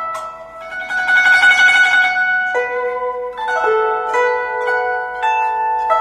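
Guzheng played with finger picks: a dense flurry of rapid plucked notes about a second in, then single plucked notes that ring on, one sliding up in pitch about four seconds in.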